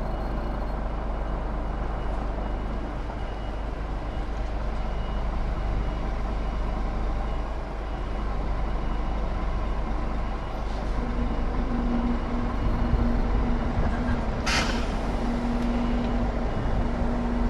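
HGV tractor unit's diesel engine running, heard from inside the cab, with a short hiss of air about two-thirds of the way through. A low tone sounds on and off over the last few seconds.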